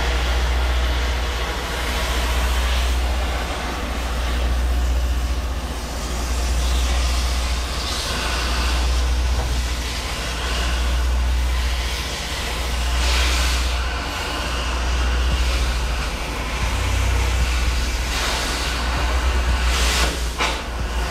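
Cutting torch hissing as it cuts through rusted, seized shock absorber bolts on a semi truck's rear suspension. Under it runs a steady low rumble that swells and fades about every two seconds.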